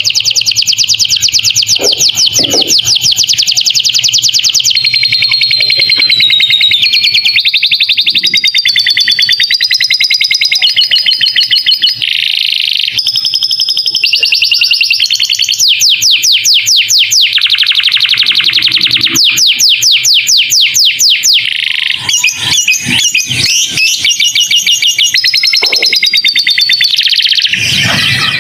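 Canary singing a long, unbroken song of rapid trills and rolls, changing phrase every second or two; its song is filled with lovebird-style phrases, as used for training other songbirds.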